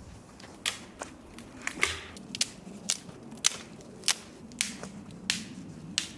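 A run of sharp wooden cracks and knocks, about two a second and uneven: dry firewood being broken up by hand or with a hatchet.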